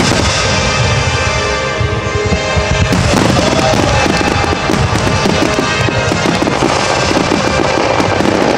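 A dense barrage of aerial firework shells bursting, many bangs overlapping in quick succession and growing denser about three seconds in, with music playing throughout.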